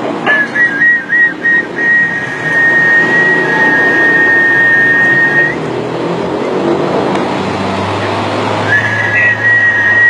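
A steady high-pitched pair of close tones, used as a sound-wave healing tone. It wavers and breaks at first, then holds. It cuts off about halfway through and comes back near the end, joined by a low hum.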